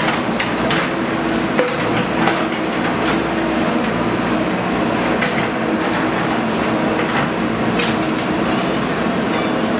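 Diesel engine of a JCB earth-moving machine running steadily under work, with a clattering rattle and a few sharp metallic knocks.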